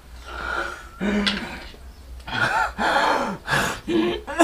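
A man groaning and gasping for breath between pained, drawn-out vocal sounds, acted as a man sick and short of breath.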